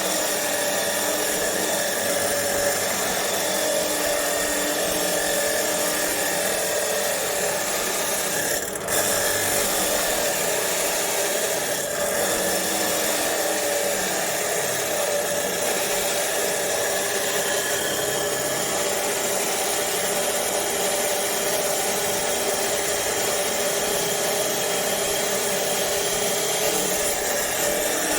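Electric chop saw cutter running with a steady motor whine over a loud hiss. The sound dips briefly twice, about nine and twelve seconds in.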